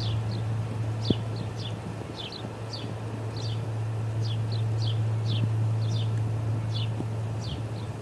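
Osprey calling: a steady run of short, high, downward-slurred chirps, two or three a second, often in pairs, over a steady low hum.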